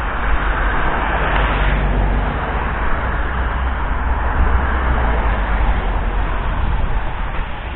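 Wind buffeting an action camera's microphone: a steady rumbling noise with no distinct events.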